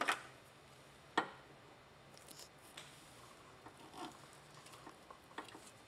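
Wire crimping tool and connector being worked on gauge wiring: two sharp snaps about a second apart near the start, then lighter clicks and a soft squeeze about four seconds in as the crimper closes on a red insulated butt connector.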